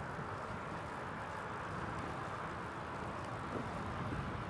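Steady rush of riding noise from a bicycle moving along a city street: wind buffeting on the microphone with a low uneven rumble, under an even hiss of road noise.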